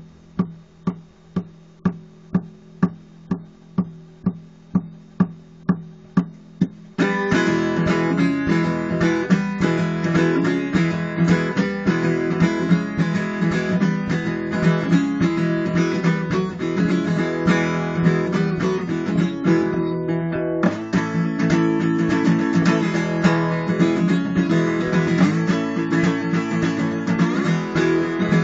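Acoustic guitar playing a solo blues. It opens with about seven seconds of steady taps, about two and a half a second, then breaks into full, dense playing.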